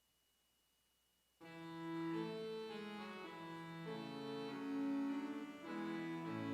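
Organ starts playing about a second and a half in, after near silence: slow music of held chords and sustained notes, the offertory.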